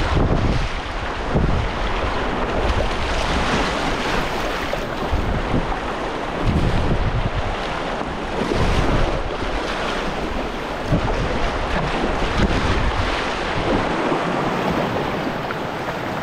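Whitewater river rapids rushing and splashing around a moving kayak, with wind buffeting the microphone in uneven low gusts.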